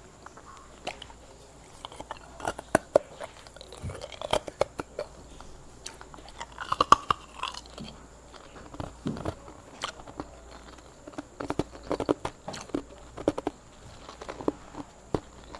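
Hard ice being bitten and chewed close to the microphone: irregular sharp cracks and crunches in clusters.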